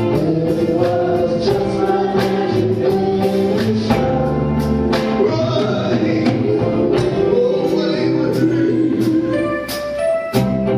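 Live soul vocal group singing a slow ballad in harmony, backed by electric guitars and drums keeping a steady beat.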